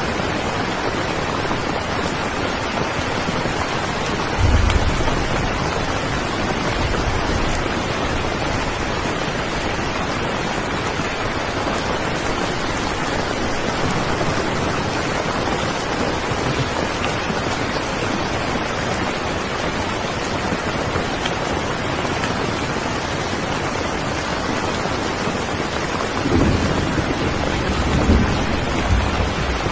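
Steady rain falling, with low rumbles of thunder about four seconds in and again twice near the end.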